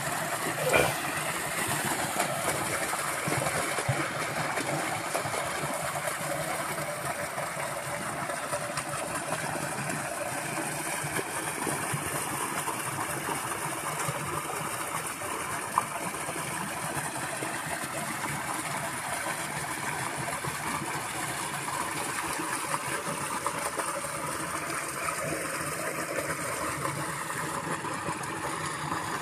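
Water pouring steadily from the concrete outlet box of a tube-well irrigation pipeline into a paddy field, with a couple of brief handling clicks.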